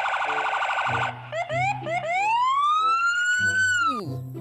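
Electronic police siren: a rapid warble for about a second, then a few short rising whoops, then one long whoop that climbs slowly and falls away near the end.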